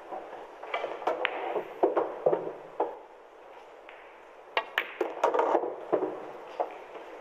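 Pool balls clicking during play: a cue tip striking the cue ball, balls colliding, and balls knocking into the pocket. This comes in two quick runs of clicks and knocks about four seconds apart, over a faint steady room noise.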